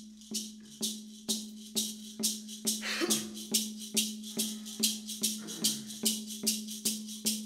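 Hand rattle shaken in a steady beat of about three strokes a second, accompanying a Women's Dance song, over a steady low drone.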